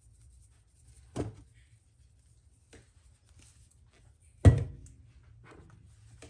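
Two dull knocks from kitchen handling, about three seconds apart, the second louder with a short ringing tail, and a few faint taps in between.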